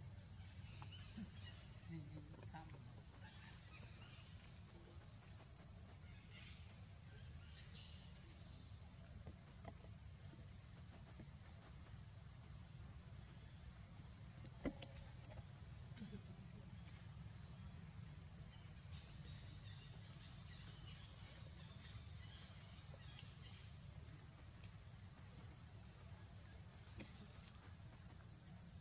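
Faint forest insect chorus: a high, steady drone with a second, slightly lower trill pulsing in a regular rhythm, over a low background rumble. One sharp click about halfway through.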